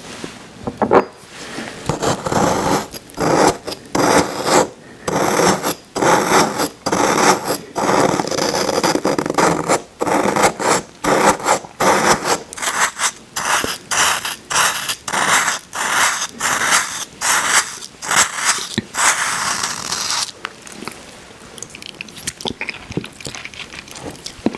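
Icee slush being eaten close to the microphone: a rapid run of crunching, scraping strokes of icy slush, quieter near the end.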